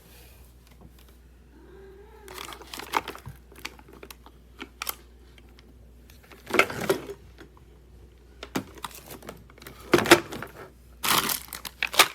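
Irregular bursts of crinkling and rustling as something is handled, loudest about ten and eleven seconds in.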